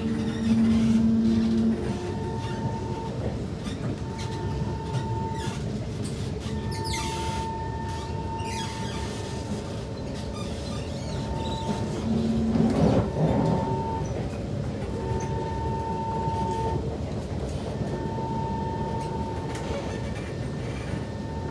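Kawasaki C151 metro train running between stations, heard from inside the passenger car: a steady rumble with a higher tone that comes and goes every couple of seconds. A louder low tone joins briefly about half a second in and again around the middle.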